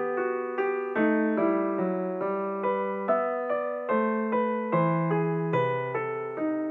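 Background piano music: single piano notes struck in an even, flowing pattern, roughly two to three notes a second, each ringing on under the next.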